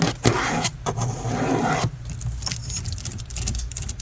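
Fake fingernails scratching over a hard surface for about two seconds, then many quick, light taps and clicks.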